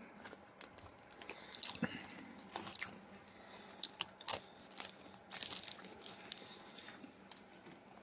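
Crusty bread crackling as it is torn apart by hand, with rustling of the plastic bag and wrapping paper around it: faint, irregular crackles, a few sharper ones.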